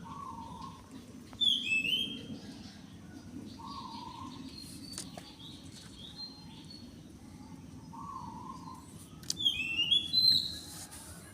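Several wild birds calling: one repeats a short low call about every four seconds, while another gives louder, high, falling paired notes about a second and a half in and again near the end, over a steady low background hum.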